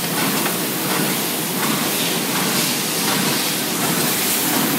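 Pocket-tissue (handkerchief paper) packing machines running steadily: a continuous mechanical running noise with hiss.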